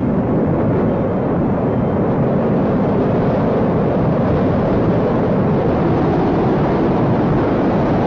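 Lava fountain erupting from its vent: a loud, steady rushing noise with no breaks.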